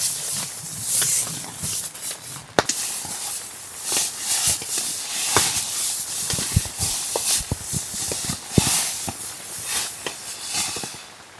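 Tent fabric and camping gear rustling as they are handled and packed up, in irregular swishes, with scattered clicks and knocks.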